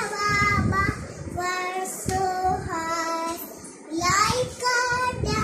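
A young girl singing a children's rhyme alone, in short phrases of held notes with brief breaks between them.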